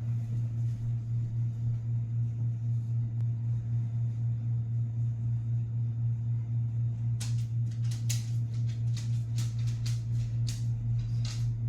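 A steady low hum that pulses evenly several times a second. From about seven seconds in it is joined by a scattered run of sharp clicks and knocks.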